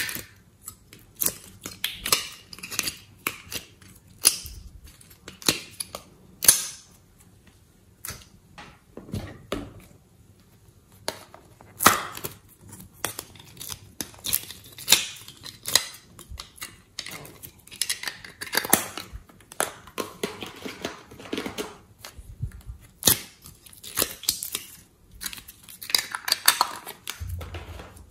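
Hands squeezing small plastic clay piping bags, giving irregular crackles, clicks and crinkles of thin plastic with sticky squishes of soft clay.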